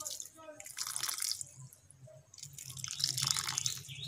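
Water poured from a plastic jug splashing onto the soil and leaves of a freshly planted potted hibiscus cutting, in two spells, the second longer and louder.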